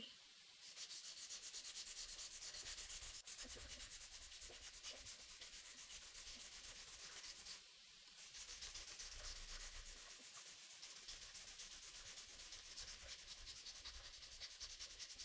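Sandpaper rubbed by hand over a wooden knife handle of black-dyed maple, in quick, even back-and-forth strokes of about five a second, with a brief pause about halfway through.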